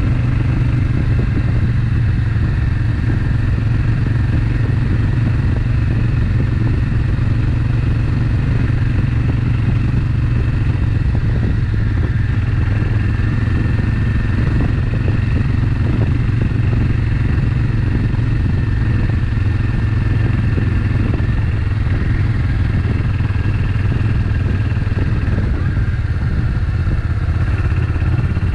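Suzuki Intruder VS800's V-twin engine running steadily while the motorcycle cruises at an even pace.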